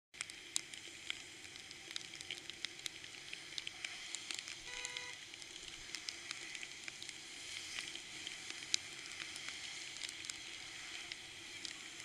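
Steady hiss of bicycle tyres and spray on a rain-soaked road, with frequent sharp ticks of raindrops striking the camera. About five seconds in, a vehicle horn gives one short honk.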